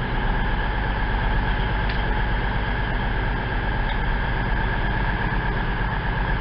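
Class 220 Voyager diesel multiple unit standing at the platform, its underfloor Cummins diesel engines idling: a steady low drone with a constant whine over it.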